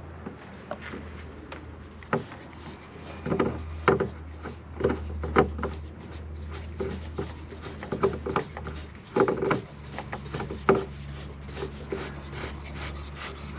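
Beech wooden support leg being screwed by hand onto the underside of a wooden bed board on a threaded rod: irregular wood-on-wood rubbing and scraping with scattered knocks.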